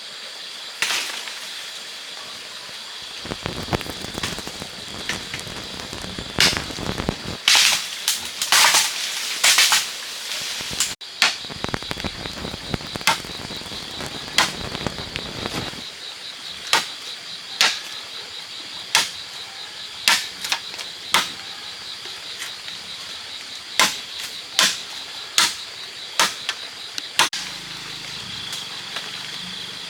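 Sharp chopping blows of a blade cutting into bamboo, coming irregularly and about once a second in the second half, with a few longer rushing crashes around eight to ten seconds in. A steady high-pitched buzz runs underneath.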